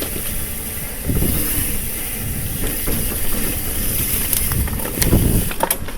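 Mountain bike rolling along a dirt trail: steady rumble of tyres and wind on the microphone, with heavier jolts about a second in and about five seconds in, and a few sharp knocks near the end.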